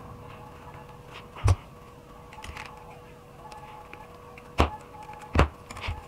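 Handling noise from wrapping a bare copper wire onto a twisted heater-element wire and handling pliers on a cutting mat. One sharp knock comes about a second and a half in, then three more close together near the end, with small clicks between, over a faint steady hum.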